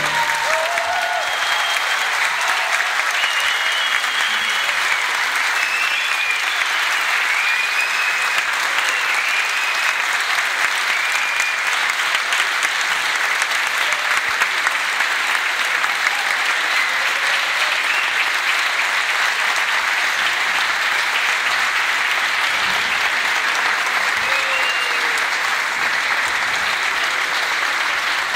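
Audience applauding steadily at the end of an orchestral piece, with a few voices calling out over the clapping in the first seconds.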